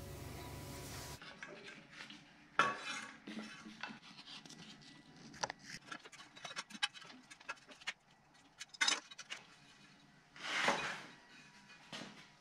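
Scattered light metallic clinks, knocks and rubbing as hands work the engine fan, fan clutch and serpentine belt on the front of a 12-valve Cummins, with a longer scrape near the end.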